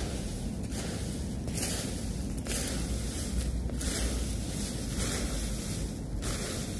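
Plastic fan rake sweeping through a deep layer of dry fallen leaves: repeated rustling and scraping strokes, each about a second long.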